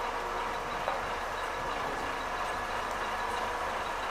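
Battery-electric city bus moving slowly toward its stop, a steady hum over street noise with faint steady whine tones.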